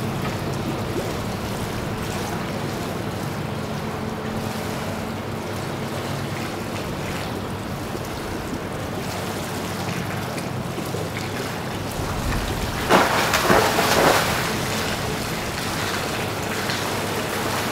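Steady wind and water noise on an action camera's microphone at the edge of a swimming pool. It swells louder for about a second and a half about three-quarters of the way through.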